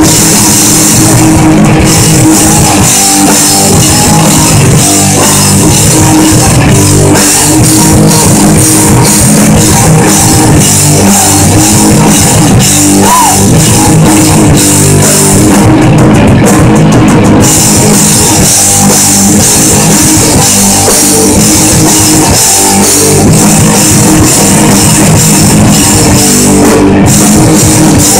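Live punk rock band playing loud, with distorted electric guitars and a drum kit. The cymbals drop out for a moment about sixteen seconds in.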